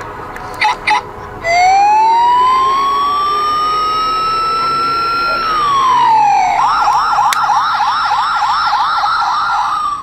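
Two quick clicks, then a toy vehicle's electronic siren sound effect: a slow wail that rises, holds and falls, then switches to a fast yelping warble at about three cycles a second, cutting off suddenly at the end.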